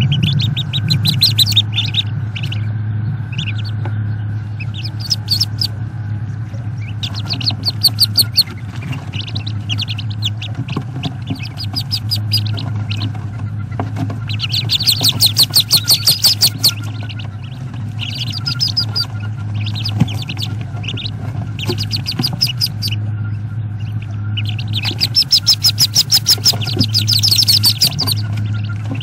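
Wood duck ducklings peeping, in repeated bursts of rapid, high-pitched peeps, over a steady electrical hum.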